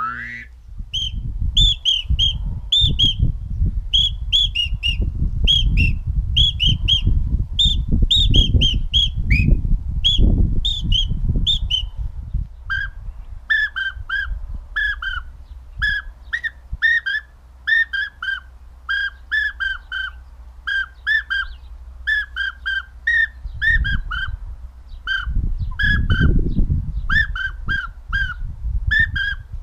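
Finger whistling imitating duck calls: short whistled notes in quick groups of two and three, high for the first twelve seconds or so, then lower and fluty, imitating a northern pintail drake. A low rumble of wind on the microphone runs underneath, strongest in the first half.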